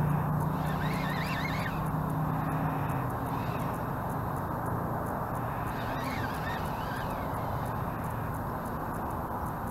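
Steady outdoor noise with a wavering animal call twice, about a second in and again about six seconds in; a low hum fades away over the first few seconds.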